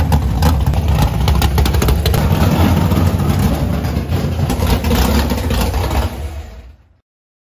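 Drag car's engine running at low speed through open exhaust headers as the car is driven slowly; the sound fades out quickly near the end.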